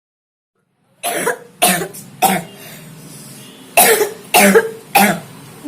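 A boy coughing in two fits of three coughs each, starting about a second in. It is a persistent cough of unknown cause (idiopathic) that lets up for only a few minutes at a time.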